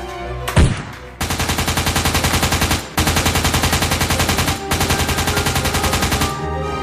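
Rapid automatic gunfire sound effect in three long, evenly paced bursts, with a single sharp impact about half a second in. Steady musical tones run alongside.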